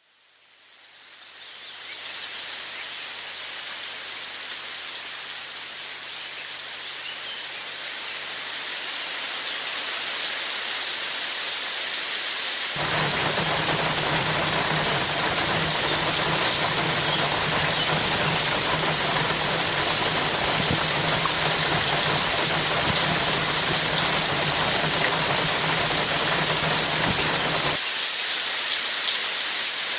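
Steady rain, a dense even patter and hiss, fading in from silence over the first couple of seconds. About halfway through it grows louder and fuller with a low rumble underneath, which drops away suddenly near the end.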